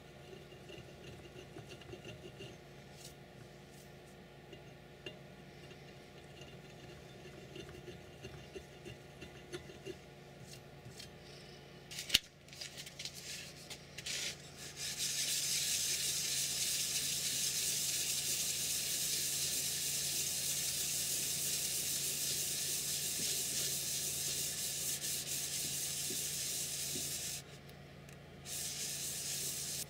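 An abrasive block rubbed across the flat top of an aluminium heatsink makes a steady hiss that starts about halfway through, stops briefly near the end, then starts again: the burrs left by drilling are being smoothed off. Before it there is faint scraping of hand deburring in the drilled holes and one sharp click.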